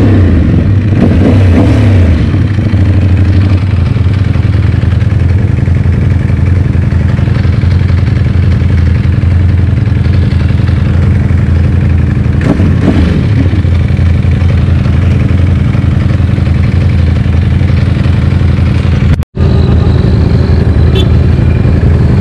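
Ducati Panigale V4's V4 engine running through an Akrapovic GP exhaust at low city speed, with the revs rising and falling about a second in and again around twelve seconds in. The sound drops out for an instant near the end.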